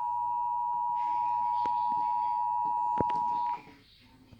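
Emergency Alert System attention signal: a steady two-tone sound that cuts off suddenly about three and a half seconds in, with a sharp click just before the end. It heralds a National Weather Service tornado warning.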